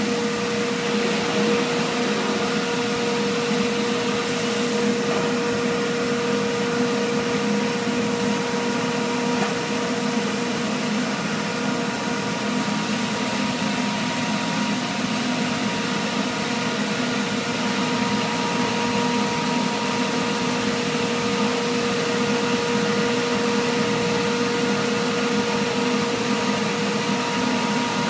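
Gabbiani panel saw running steadily: a constant machine drone with a steady hum.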